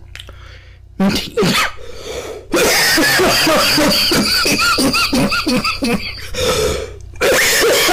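A man laughing that he cannot hold in. It starts as short sharp bursts, then becomes a long run of rapid, high-pitched laugh pulses about three a second, with one more loud burst near the end.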